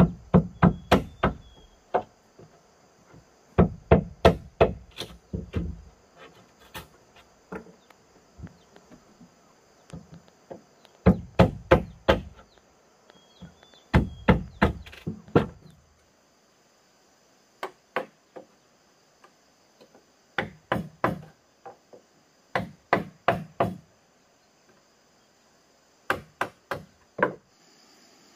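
Bursts of sharp blows on bamboo, four to six at a time at about three a second, with pauses between bursts. Insects buzz steadily in the background.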